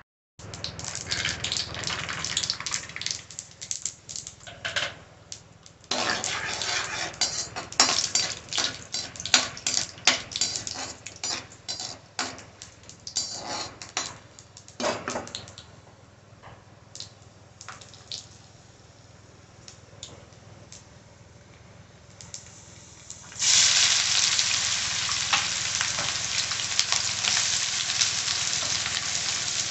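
Peanuts frying in hot oil in a kadhai, crackling and popping unevenly as they are stirred with a metal spoon. About three-quarters of the way through, chopped onions go into the hot oil and a loud, steady sizzle takes over.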